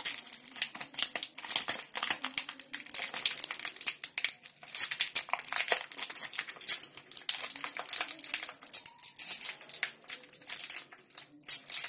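Plastic Oreo biscuit wrapper crinkling and crackling irregularly as fingers work open its crimped end seal.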